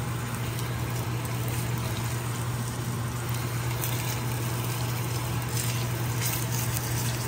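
Steady low hum and airy rush of an electric fan running, unchanging throughout.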